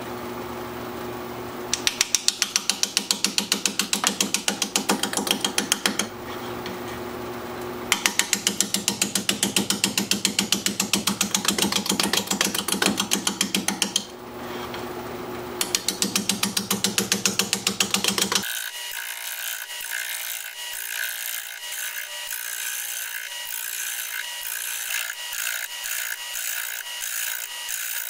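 Wood lathe spinning an out-of-round live oak bowl blank at about 430 RPM while a 5/8 inch bowl gouge makes an interrupted cut. The gouge strikes the blank's high spots in fast, evenly spaced knocks, in three stretches with the lathe humming alone between them. Past the halfway point the sound turns thinner and higher, a quick steady rattle.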